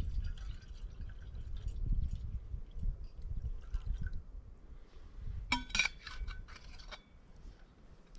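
Liquid trickling and dripping, with a sharp ringing clink of cookware about five and a half seconds in, followed by a few lighter clinks.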